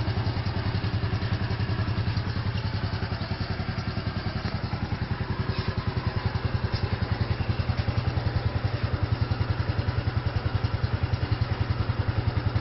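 An engine idling with a steady, even chug of about seven beats a second.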